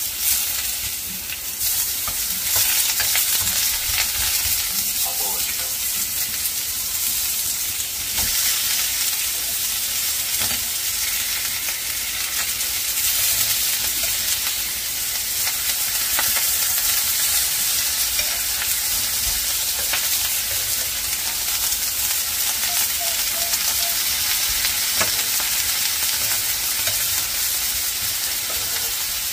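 Pork belly slices sizzling steadily on a hot ridged cast-iron grill pan, with light clicks now and then as metal tongs lay down and move the slices.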